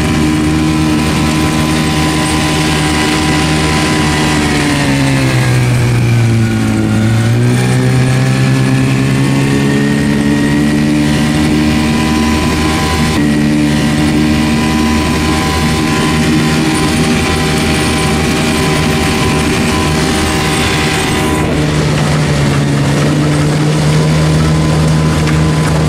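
Veterok-8 two-stroke outboard motor running fast under load, pushing the boat at about 28 km/h, with water rushing along the hull. About six seconds in, the engine note sags lower and then climbs back within a couple of seconds. It dips slightly again near the end.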